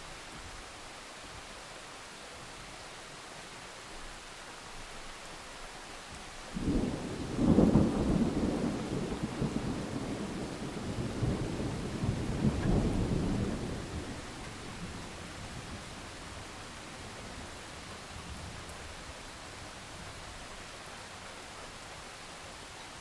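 Steady rain with a clap of thunder about six seconds in that rolls on as a deep rumble, swells again a few seconds later and dies away, leaving the rain.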